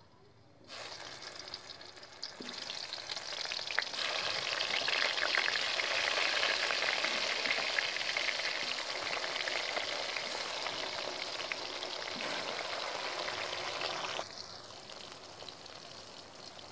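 Flour-coated tempeh pieces frying in hot oil in a pan, a dense crackling sizzle. It starts under a second in, gets louder about four seconds in as more pieces go into the oil, and drops off sharply about fourteen seconds in.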